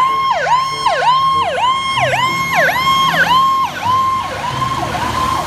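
Fire truck's electronic siren in yelp mode, rising and falling quickly about twice a second and growing a little fainter near the end.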